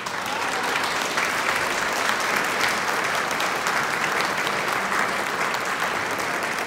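Audience applauding: a crowd's clapping breaks out suddenly and carries on steadily at the end of a piece.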